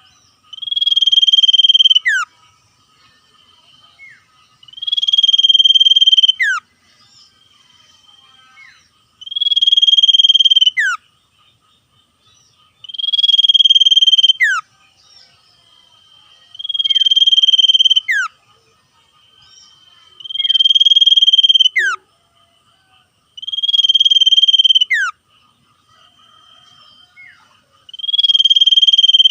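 Common iora (sirtu cipoh) singing its sirtu song: eight phrases, one about every four seconds, each a buzzy trill held for about a second and a half that ends in a quick falling whistle. A faint steady high trilling runs between the phrases.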